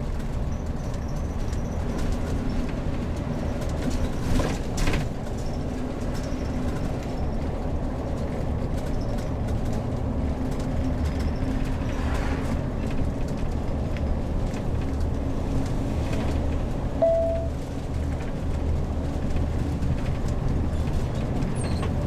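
Heavy-goods-class motorhome driving, its engine and road noise making a steady low drone. A couple of brief knocks come about four to five seconds in, and a short beep comes about seventeen seconds in.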